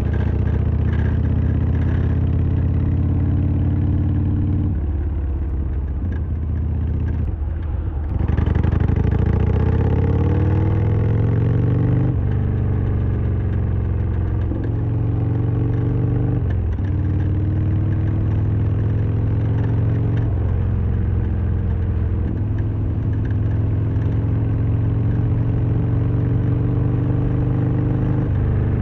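Harley-Davidson Sportster XL1200R's air-cooled 1200 cc V-twin running under way, its pitch climbing as it pulls harder about eight seconds in, with several brief drops in revs along the way.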